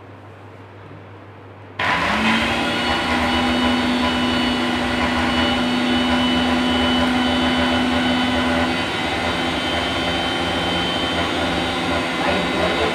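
Electric mixer grinder starting abruptly about two seconds in, its motor spinning up quickly and then running with a steady whine while grinding thermocol (polystyrene foam) pieces in its steel jar. The pitch settles slightly lower past the halfway point.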